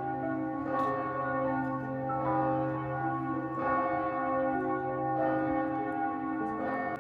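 Bells ringing, struck about every second and a half, each strike ringing on long under the next.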